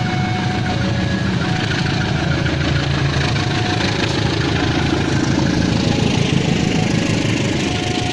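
Diesel locomotive of a passenger train running with a steady heavy rumble, swelling slightly about six seconds in.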